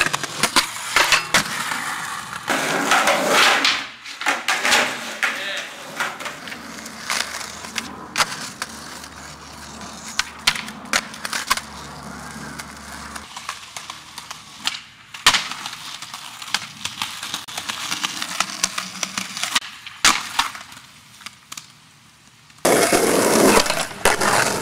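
Skateboards rolling on concrete and asphalt, with many sharp clacks of boards popping and landing over several tricks. The rolling gets louder for the last couple of seconds.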